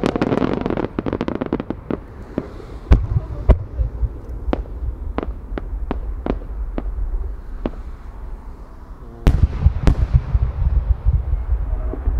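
Aerial firework shells bursting overhead. It opens with a dense crackle of many small bursts going off together, then single sharp bangs at intervals. About nine seconds in comes a loud bang, followed by a heavy low rumble.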